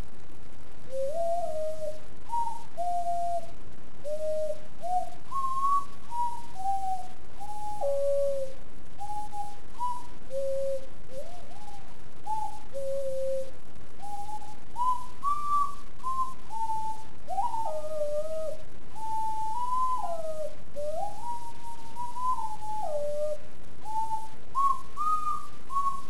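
Songbird Ocarinas extended-range sweet potato ocarina playing a melody of single pure, whistle-like notes that step up and down, with some slides between notes, over a steady background hiss.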